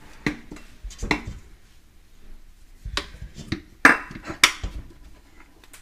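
Spoon knocking and scraping against a stainless-steel pot while a stiff, floury playdough mixture is stirred, in a string of sharp clinks and knocks, the loudest two about four seconds in.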